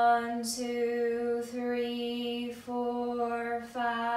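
A woman's voice intoning a slow count on one held pitch, about one drawn-out number a second, pacing the eight-count exhale of a 4-7-8 breathing exercise.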